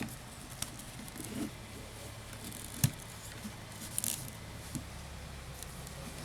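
A few scattered light clicks and taps, with one sharper click about three seconds in and a brief crackly cluster about a second later, over a steady low hum.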